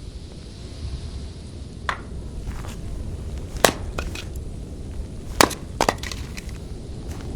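Dry wood cracking: about five sharp snaps, the loudest about halfway through and again a little later, over a steady low rumble.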